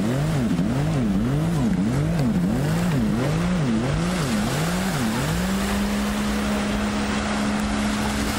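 Racing jet ski engine, its revs rising and falling about twice a second, then holding a steady high pitch from about five seconds in, with the hiss of spray and water.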